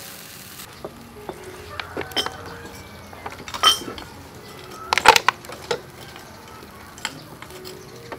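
Chicken sizzling on a charcoal grill for the first moment, then light clinks and knocks of kitchenware against a stone mortar and wooden table as fish sauce and lime juice are added, with louder knocks about three and a half and five seconds in.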